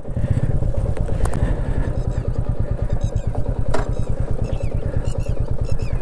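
Royal Enfield Meteor 350's single-cylinder engine running at low speed under a slow ride, a steady, rapid thumping.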